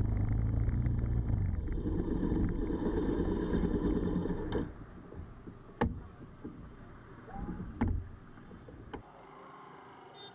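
Motorcycle engine running at low speed as the bike rolls onto the verge, then stopping about four and a half seconds in. Two sharp knocks follow, about two seconds apart.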